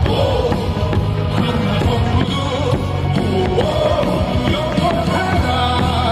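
Music with a steady beat and a bass line: a Korean professional baseball batter's cheering song.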